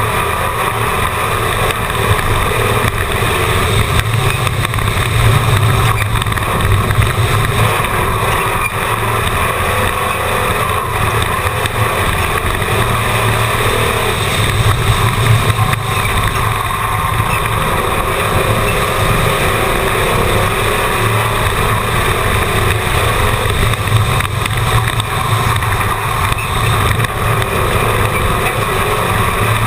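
Race car engine heard onboard at speed around an oval track, a loud, continuous engine note that swells and eases slightly through the laps.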